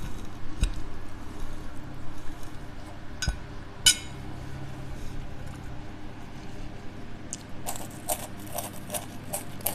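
A person eating: a few sharp clicks of cutlery against a plate in the first four seconds, then a run of quick wet mouth clicks and smacks of chewing near the end.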